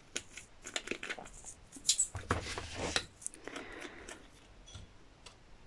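Small clear plastic jars of round diamond-painting drills being handled and their screw lids opened and closed: a string of light plastic clicks, with a longer rustle about two seconds in.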